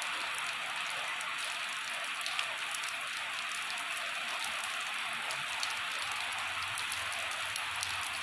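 Steady rain falling on a wet asphalt road and roadside foliage: an even hiss with scattered faint drop ticks.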